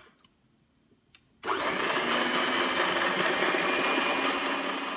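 A few light clicks, then about one and a half seconds in an electric hand mixer on its stand starts up with a rising whine and runs steadily. Its beaters are whisking egg whites and a pinch of salt in the bowl, the first stage of beating them to a foam.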